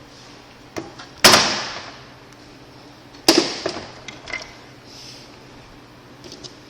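Two sharp clacks about two seconds apart, each fading out quickly, with a few faint clicks and small knocks around them: hard tools and battery parts being handled on a workbench.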